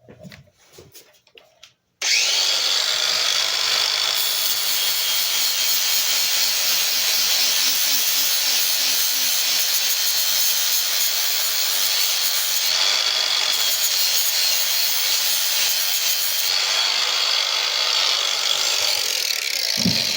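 Angle grinder with a 120-grit flap disc sanding the steel of a pair of lineman's pliers clamped in a vise: a steady grinding hiss with a high whine that starts suddenly about two seconds in, after a few faint clicks.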